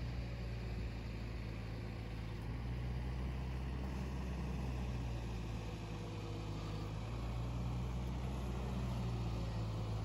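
Steady low mechanical hum, growing a little louder over the last few seconds.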